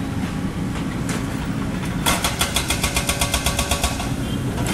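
A mini excavator's diesel engine running steadily. In the middle it is joined for about two seconds by a fast rattle of about ten knocks a second.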